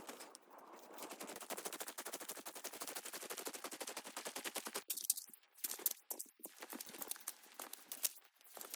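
Falling snow pattering rapidly on fabric close to the microphone, a dense run of small clicks, with a few louder crackles about five and six seconds in.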